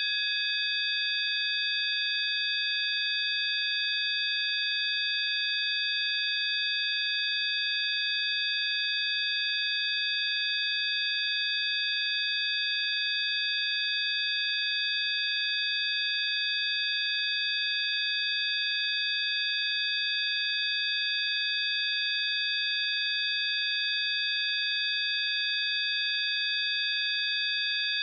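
Synthesized healing-frequency tones: several steady, high-pitched pure tones sounding together without change, over a faint hiss.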